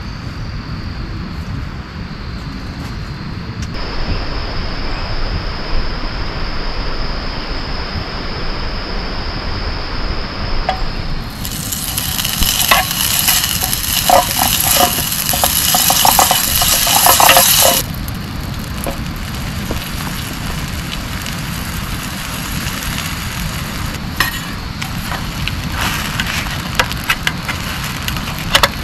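Heavy rain pouring on the camp, a continuous hiss with a steady high tone over it at first. About twelve seconds in, the rain turns much louder and denser for about six seconds, a close spatter of drops, then falls back to a steady pour with scattered drips.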